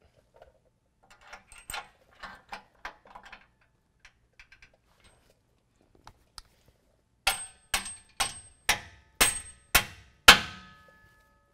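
Light clicks and taps as a long bolt with a washer is fitted into the bumper bracket, then about seven sharp ringing strikes, roughly two a second, as a mallet pounds the bolt through the bracket and truck frame in a very tight fit. The last strike is the loudest and rings on.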